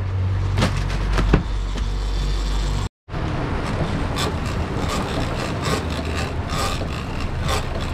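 Twin Suzuki outboard motors running steadily with the boat under way, with wind and water rushing past. A few knocks on deck sound in the first second and a half, and the sound cuts out briefly about three seconds in.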